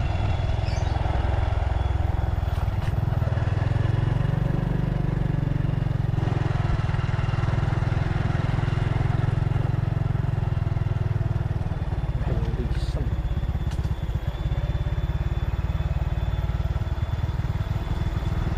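Motorcycle engine running steadily at low speed while riding, a continuous low rumble.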